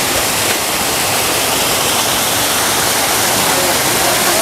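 Water pouring in a strong cascade from an inlet into a concrete fish pond: a steady, loud rushing and splashing.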